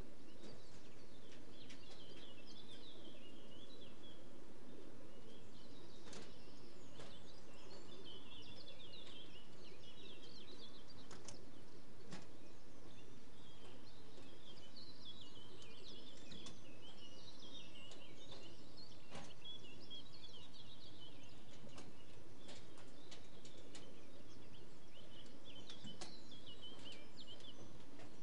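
Small birds chirping and singing repeatedly over a steady low background rumble, with a few scattered clicks.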